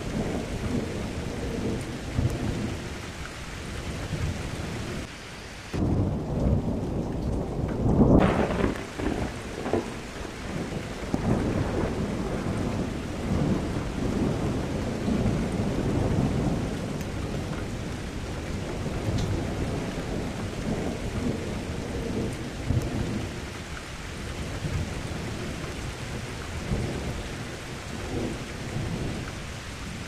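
Thunderstorm: steady rain with rolling thunder. A loud thunderclap comes about eight seconds in and rumbles on for several seconds.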